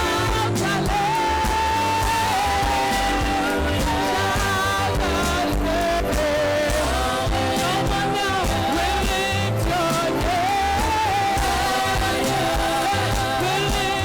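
Live gospel worship music: a band with bass and drums keeps a steady beat under a voice holding long, wavering sung notes.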